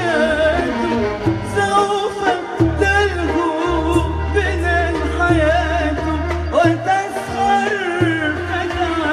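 A woman singing an Arabic song through a microphone in long, wavering, ornamented phrases, over instrumental accompaniment with a bass line that changes note every second or so.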